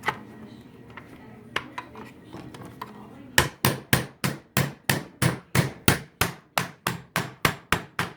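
Scattered small clicks, then about a third of the way in a rapid, even run of sharp hammer blows, roughly four to five a second, forcing a part into place on a Shark vacuum's plastic bottom housing.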